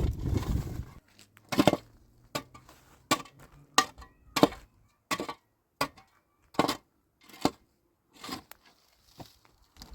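A run of short, sharp knocks and clinks of hard objects striking, about a dozen of them, roughly one every three-quarters of a second. Before them comes a second of dense rustling noise that stops abruptly.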